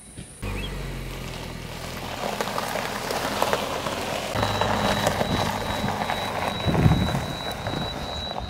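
Subaru Forester's flat-four engine running as the car pulls away across loose gravel, with a steady gritty crunch of tyres on stones.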